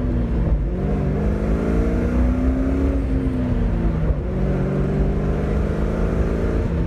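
2001 Ford Mustang running through its new aftermarket exhaust while driving, a deep drone whose pitch rises slowly, eases off about four seconds in, then climbs and drops again near the end.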